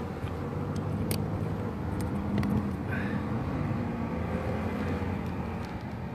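BMW G 310 GS single-cylinder motorcycles running on the circuit, a steady low engine drone whose pitch wavers as the riders work the throttle. Two short clicks come about one and two and a half seconds in.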